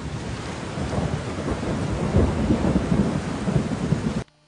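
Heavy rain pouring down, with a deep rumble underneath that is heaviest in the middle; it cuts off suddenly near the end.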